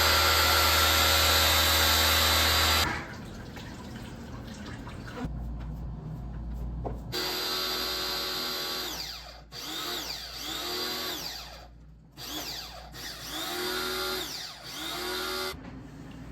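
Power drill running: one steady run of about three seconds, then after a pause several shorter bursts that each speed up and slow down.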